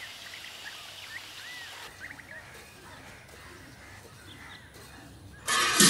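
Quiet outdoor ambience with small birds giving short, curved chirps now and then. About half a second before the end, loud music with percussion cuts in suddenly.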